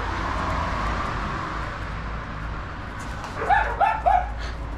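Maltese dog barking three times in quick succession, short high yaps, about three and a half seconds in, while the dogs play with toys.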